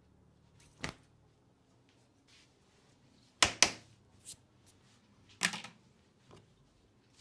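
Sharp hand slaps during a head massage: one about a second in, two loud ones in quick succession around three and a half seconds, another around five and a half seconds, with fainter taps between.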